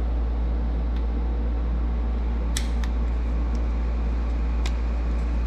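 A plastic trim tool prying at the push-in retaining clips on a car's front grille insert, giving a few short plastic clicks, two of them close together midway. A steady low hum runs underneath throughout.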